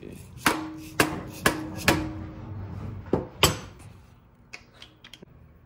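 Mallet blows knocking an alternator into line on its mounting bracket on the engine block. Four sharp strikes come about half a second apart, each leaving a short metallic ring. Two more follow about a second later, then a few light clicks near the end.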